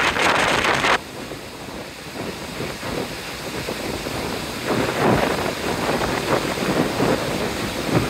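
Waterfall and rapids rushing: loud for about the first second, then suddenly quieter. Wind buffets the microphone in gusts from about five seconds in.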